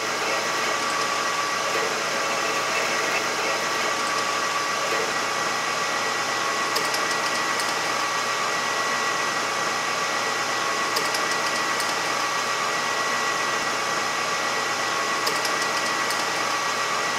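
Metal lathe running steadily with a constant whine as a twist drill, held in a tailstock Jacobs chuck, peck-drills into a spinning aluminium workpiece.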